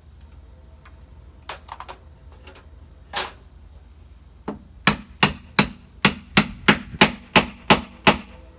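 A wooden rocking chair arm being knocked home onto its freshly glued dowel joint: a few light taps, then a run of about a dozen sharp knocks on wood, about three a second.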